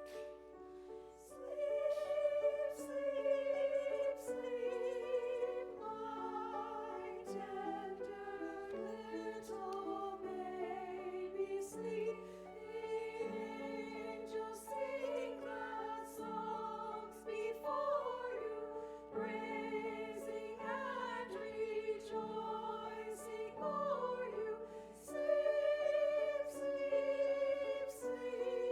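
A singer with a wide vibrato sings a slow song over sustained instrumental accompaniment.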